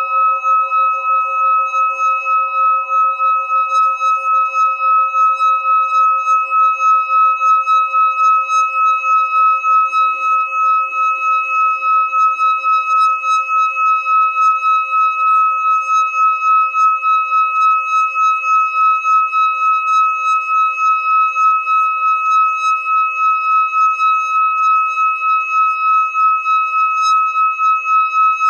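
A metal singing bowl sung by rubbing a wooden mallet around its rim: one sustained ringing tone with a few overtones, pulsing in a steady fast waver.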